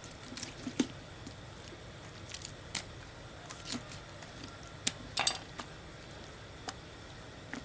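Knife cutting chicken meat on a cutting board: about ten irregular sharp taps and knocks of the blade on the board, the loudest about five seconds in.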